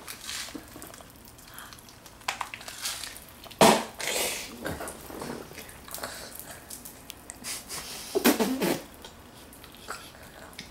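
Pop Rocks popping candy crackling and snapping in a toddler's mouth as he chews, a scatter of small irregular pops. Two louder bursts stand out, about three and a half and eight seconds in.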